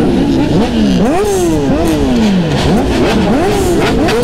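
Several sport motorcycle engines revving in repeated throttle blips, each pitch climbing sharply and then sliding back down, the blips from different bikes overlapping.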